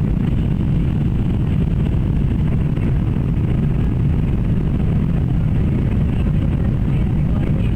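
Steady drone of an airplane's engine and airflow, heard from inside the cabin.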